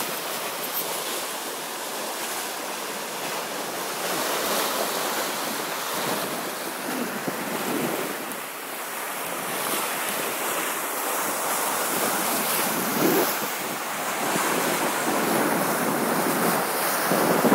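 Sea water rushing and splashing along a sailing yacht's hull as it sails, the bow wave hissing past, with wind buffeting the microphone. The water noise surges now and then with the waves.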